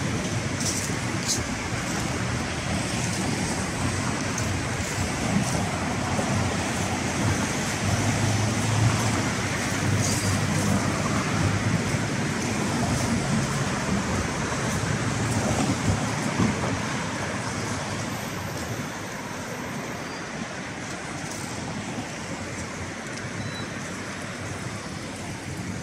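Busy city road traffic: a steady din of passing vehicles with a low rumble, easing somewhat in the last third.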